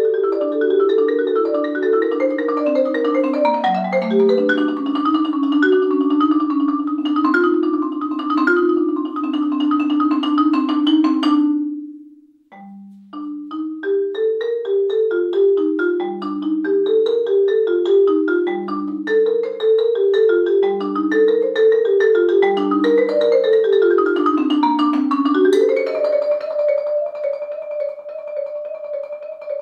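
Solo marimba, a Korogi concert instrument struck with yarn mallets, playing fast runs of notes. The music breaks off for a brief pause about twelve seconds in, then resumes with a new pattern.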